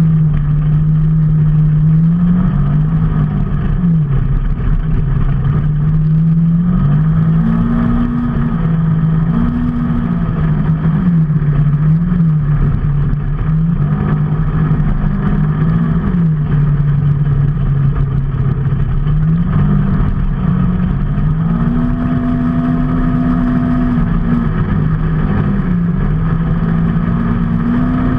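Motor vehicle engine running under way, its pitch rising and falling repeatedly as the speed changes, over steady road and wind noise.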